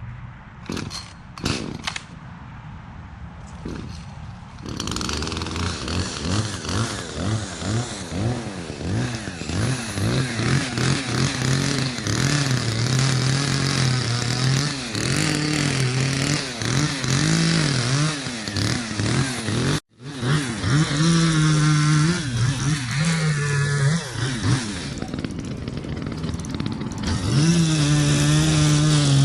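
Echo CS-310 two-stroke chainsaw pull-started with a few short tugs, catching about four and a half seconds in, then running loudly with its revs rising and falling over and over as it is throttled and cuts into wood.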